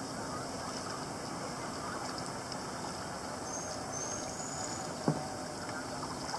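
Steady rushing noise of a boat moving along the river, with a single sharp knock about five seconds in.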